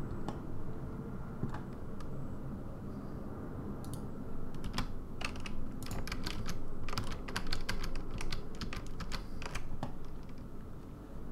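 Computer keyboard keys being pressed in short irregular clicks, as single keys and shortcut combinations. The clicks are sparse at first and come thicker in the second half, over a low steady background hum.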